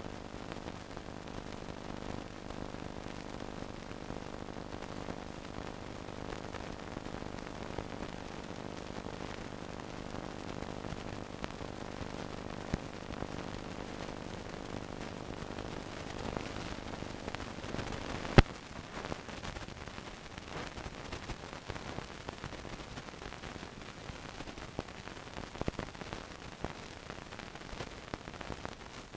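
Hiss and crackle of an old film soundtrack with no recorded sound on it, carrying a steady low hum. About eighteen seconds in there is a single sharp click, and after it the hum stops, leaving only hiss and crackle.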